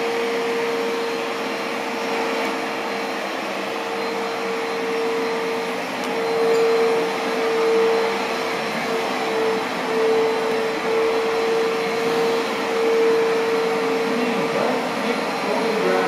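Upright vacuum cleaner running, a steady motor whine with a high hum, swelling and easing as it is pushed back and forth over the floor.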